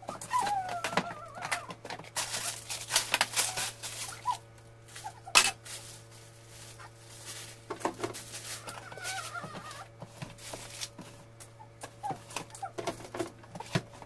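Items and the plastic drawer of a refrigerator knocking and rattling as things are taken out, with sharp clatters about two to four seconds in and a single loud knock about five seconds in. A few short high calls that fall in pitch come near the start and again about nine seconds in.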